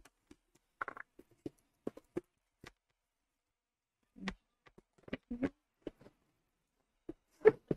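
Light wooden knocks and clicks as a thin wooden box and its loose lid are handled, lifted off and put back on: short scattered taps with quiet gaps, in small clusters about a second in, around the middle and near the end.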